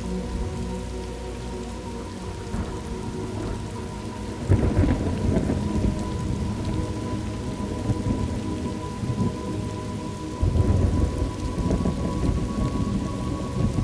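Steady rain with thunder rumbling twice, first about four and a half seconds in and again a little after ten seconds.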